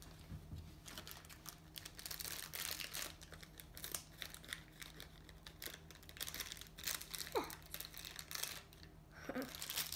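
A crinkly plastic toy wrapper bag crackling as it is handled and cut open with scissors.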